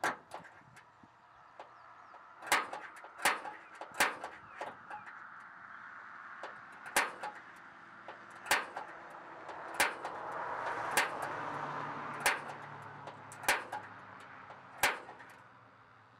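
Center punch marking the steel floor of a pickup bed through a hitch rail's bolt hole: about ten sharp metallic clicks, a second or so apart. Each strike dents the spot to be drilled so the drill bit won't walk.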